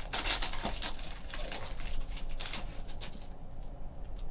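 Plastic trading-card pack wrapper crinkling as it is pulled off, with cards being handled: a run of light rustles and ticks that thins out after about three seconds.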